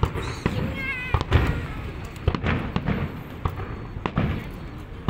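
Aerial fireworks going off: a rapid string of booming bursts and sharp bangs, a few each second, echoing between them, with a brief wavering whistle about a second in.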